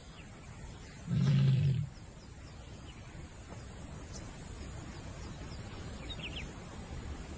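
A lion gives one short, low call, under a second long, about a second in, over a steady outdoor background with a few faint high chirps near the end.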